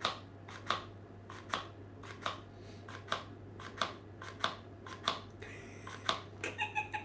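Tupperware plastic flour sifter clacking each time its handle is squeezed as flour is sieved into a bowl. The clacks come regularly, about one every 0.7 seconds.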